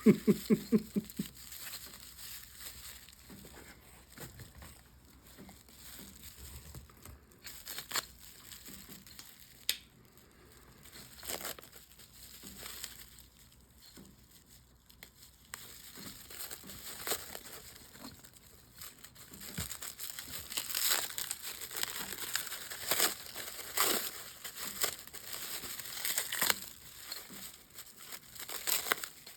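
Packing material crinkling and crumpling as a wrapped item is unwrapped by hand, with scattered crackles that grow busier and louder in the second half. A brief pulsing vocal sound right at the start.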